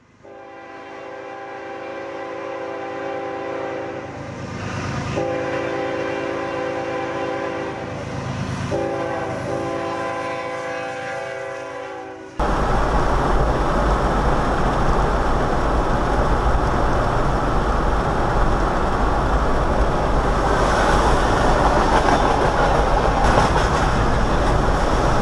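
Locomotive air horn sounding a chord of several tones in three long blasts with short breaks between them. About twelve seconds in it cuts abruptly to steady road and engine noise inside a moving car.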